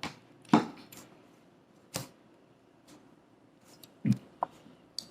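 About five scattered sharp knocks and clicks of cutlery and dishes being handled at a meal table, with quiet room noise between them.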